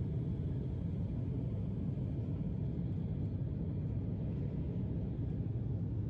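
Steady low rumble of a jet airliner's engines and airflow, heard inside the passenger cabin.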